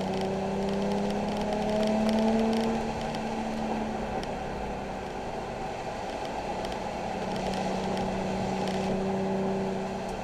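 Nissan 370Z's V6 engine running under way, its note climbing slightly for the first two and a half seconds, then dropping a little and holding steady.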